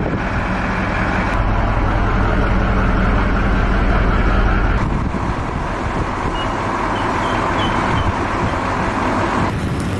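Loud, steady engine drone and rumble from an airport cargo loader truck and the ground equipment around a cargo plane. The sound shifts abruptly about a second and a half in and again about five seconds in.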